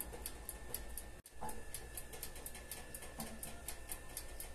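Steady rapid ticking, about five ticks a second, from the electric oven's clockwork timer counting down while the roast bakes, over a faint steady hum. It cuts out for a moment about a second in.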